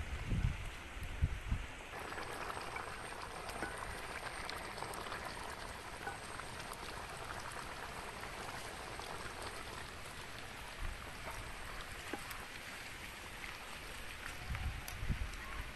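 Ginger chicken gravy bubbling in a large pot over a wood fire: a steady hiss of small pops and crackles, with a few low thumps near the end.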